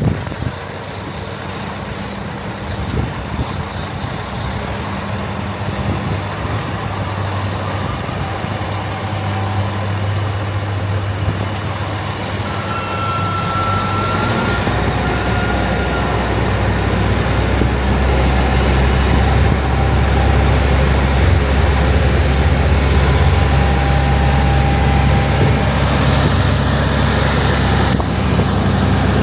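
Heavy diesel harvest machinery running steadily, its low engine drone growing gradually louder as it comes closer, with a short high whine about halfway through.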